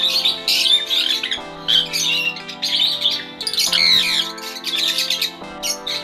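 Caged parrots chirping and chattering in quick, overlapping calls, over background music of steady held chords.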